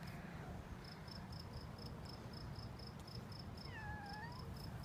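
High-pitched insect chirping, a steady run of about four chirps a second, with a short whistled bird call near the end over a low outdoor rumble.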